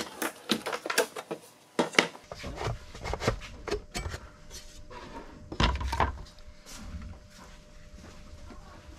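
Handling noise as a wooden side panel and the wood-veneered top cover are taken off a hi-fi receiver: a string of sharp clicks and knocks of wood on sheet metal, with heavier thumps about five and a half seconds in.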